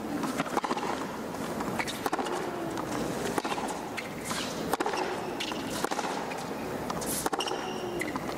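Tennis rally on a hard court: sharp racket hits and ball bounces following one another at a steady pace, roughly one to two a second.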